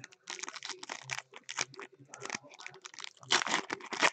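Foil trading-card pack wrapper being crinkled in the hands and torn open, a run of quick crackles that grows louder near the end.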